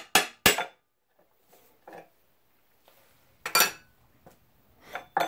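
Ball-peen hammer striking the starting crank at the front of a Ford Model T crankshaft to free it: three quick, sharp metal blows, then scattered metallic clinks with a short ring, the loudest about three and a half seconds in.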